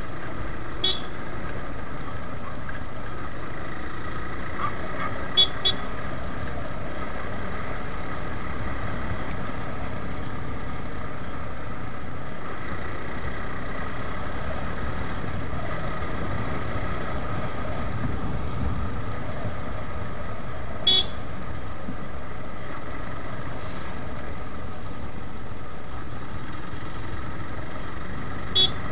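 Suzuki Gixxer motorcycle's single-cylinder engine running steadily on the move, mixed with wind and road noise. Short horn toots sound about a second in, twice in quick succession about five seconds in, once about 21 seconds in and once near the end.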